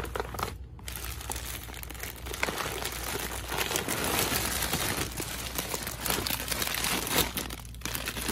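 Plastic shopping bags and plastic candy packaging crinkling and rustling as they are handled and rummaged through: a dense run of crackles with a short lull near the end.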